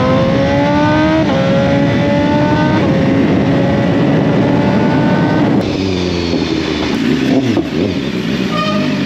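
BMW S1000RR inline-four engine accelerating with wind rushing over the microphone: the revs climb, drop at an upshift about a second in, then hold steady. About five and a half seconds in the revs fall away and the pitch drops and wavers as the bike slows, settling low near the end.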